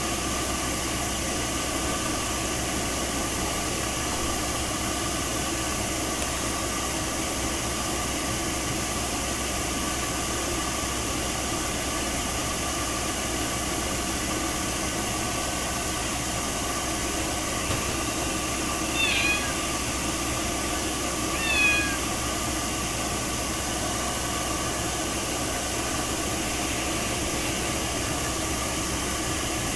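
Ragdoll cat meowing twice, two short falling calls about two and a half seconds apart, over a steady machine whirr.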